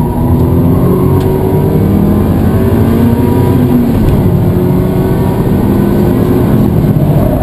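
Car running, a loud steady mechanical drone with several tones that drift slowly in pitch, one falling gently about four seconds in. It is recorded as an abnormal noise from the car.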